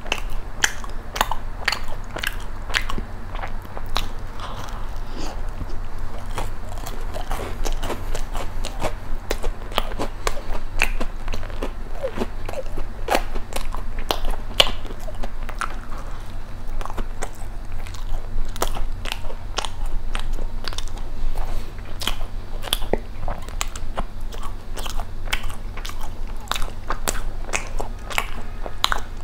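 Close-miked mouth sounds of a person chewing a crisp baked dessert, with many small, irregular crunchy clicks.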